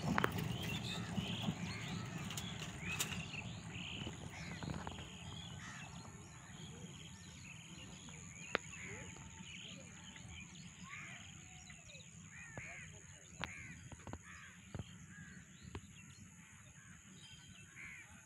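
Rumble of a long ICF passenger-coach train's wheels on the track, fading steadily as the last coach draws away. Crows and other birds call repeatedly over it, with a steady high thin whine and a few sharp clicks.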